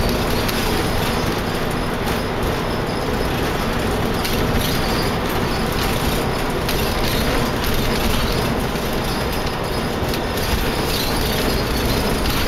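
Rubber-tyred tour trolley bus driving along a road, heard from inside the cabin: a steady engine and road-noise rumble.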